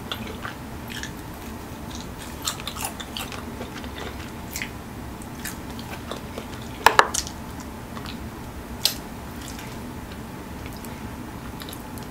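A person chewing and eating a chicken wing up close, with scattered wet mouth clicks and smacks; a louder smack comes about seven seconds in and another near nine seconds.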